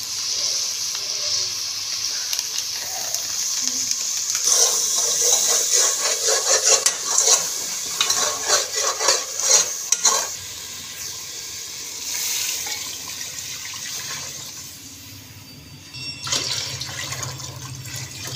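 Spice masala sizzling in oil in a steel cooking pot while a metal spoon stirs it. From about four seconds in to about ten seconds the spoon scrapes and clinks rapidly against the pot.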